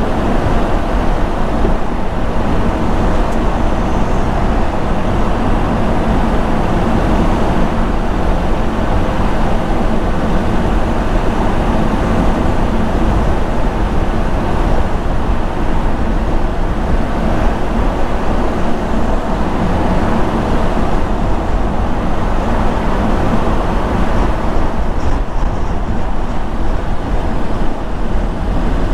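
A car driving at a steady speed: continuous tyre and road noise with a low engine hum, unchanging throughout.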